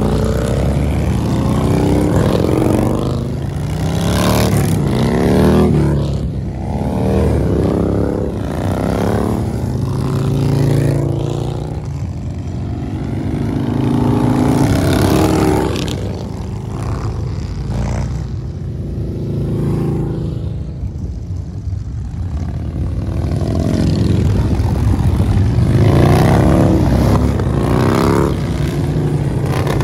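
A procession of cruiser and touring motorcycles riding past one after another at low speed. The engine sound rises and falls as each bike goes by, with several pass-bys over the stretch.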